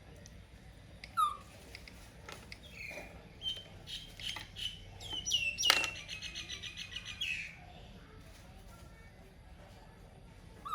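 Young pet monkey giving high squeaky calls: short chirps falling in pitch, then a loud, rapid stuttering squeal about halfway through.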